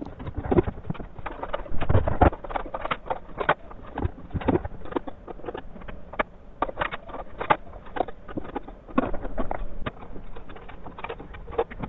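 Fast-forwarded sounds of hands-on installation work: a quick, irregular jumble of clicks, knocks and clatter.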